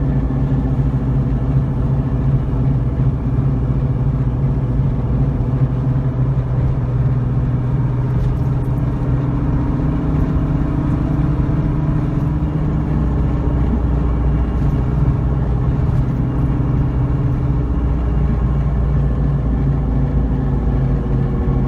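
Nissan 350Z's 3.5-litre V6 and road noise at speed: a steady low drone whose engine pitch rises slowly in the second half. This is the high-speed drive where a grinding comes from the right rear, which the owner thinks is the brake dust shield rubbing against the disc.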